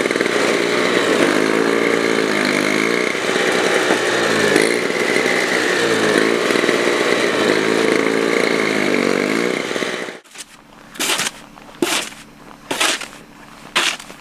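A small engine running, its pitch rising and falling over and over. About ten seconds in it cuts off abruptly, followed by four short strokes of a snow shovel scraping pavement, about a second apart.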